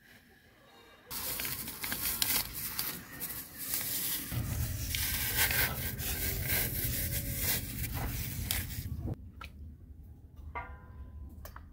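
Cassava roots being peeled by hand over a pot of water: the thick rind tearing and rubbing off in a dense run of tearing and scraping sounds that starts about a second in. Near the end it drops to a few quieter handling sounds.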